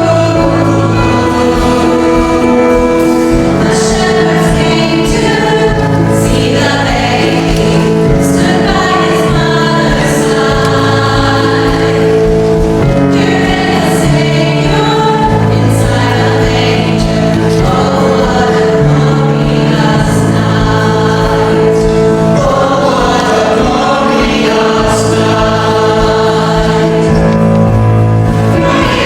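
Church choir singing an Advent or Christmas piece with instrumental accompaniment under it.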